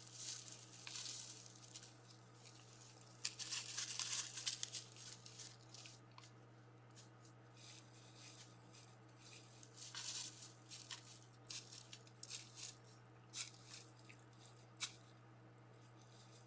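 Irregular bursts of crunching and rustling in dry leaf litter as animals move and forage, over a steady low hum.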